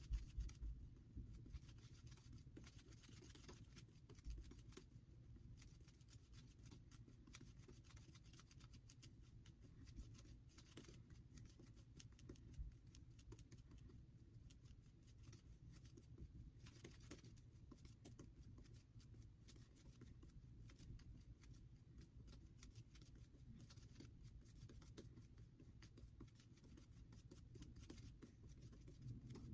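Faint, soft patter and crackle of a badger-hair shaving brush (Declaration Grooming B4) working soap lather over the face, a little louder in the first second or so.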